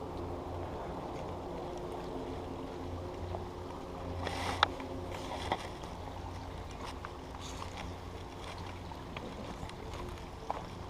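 Waterfall's steady low rushing of falling water, with a couple of sharp clicks or knocks about halfway through.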